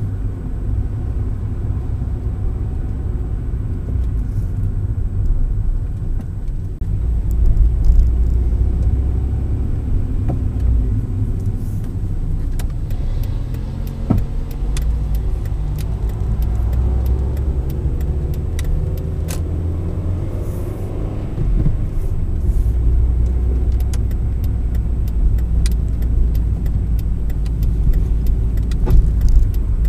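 Car driving, heard from inside the cabin: a steady low road and engine rumble. The engine note rises around the middle as the car speeds up, with light clicks and rattles through the second half.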